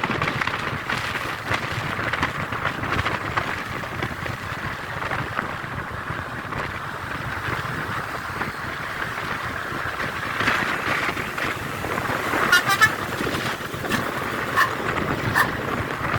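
A bus's telolet-style musical horn gives a short warbling blast about two-thirds of the way in, then two brief toots, over steady traffic and street noise.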